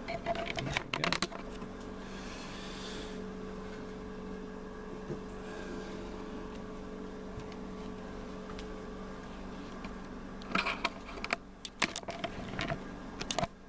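Camera handling noise as the camera is fitted to a tripod and repositioned: clusters of clicks and knocks in the first second and again near the end, with a steady low hum in between.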